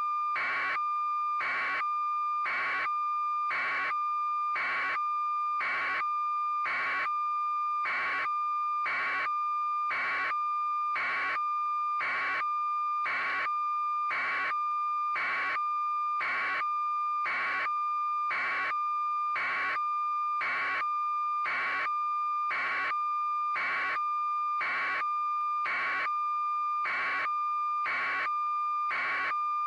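A steady, high electronic tone with a buzzing pulse repeating evenly about every 0.7 seconds, unchanging throughout.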